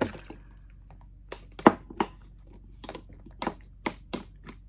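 Metal spoon scooping roasted peppers and packing them down through a canning funnel into a glass jar: irregular clinks and knocks against the bowl, funnel and jar, the sharpest about a second and a half in, with soft squishing of the peppers.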